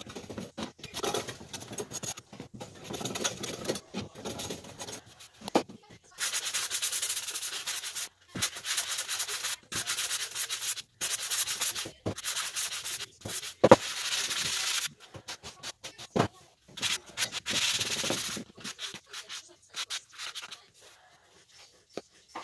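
Hand sanding of a wooden wheel's coated face with a sanding block, in runs of quick back-and-forth scraping strokes. A few sharp knocks come in between, the loudest about two-thirds of the way through.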